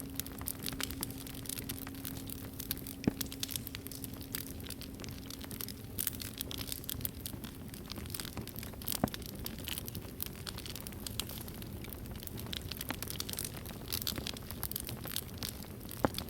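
Campfire crackling, with irregular pops and a few louder snaps. A low, steady singing-bowl hum dies away about halfway through.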